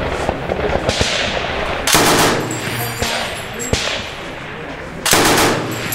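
.338 Norma Magnum belt-fed machine gun firing two short bursts of automatic fire, each about half a second long, about three seconds apart. Fainter single sharp reports come in between.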